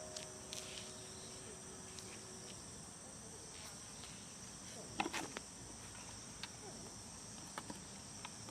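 The last note of an outdoor public-address loudspeaker chime hangs and dies away over the first couple of seconds. It leaves a steady, high-pitched chorus of evening insects, with scattered short clicks and a brief sharper sound about five seconds in.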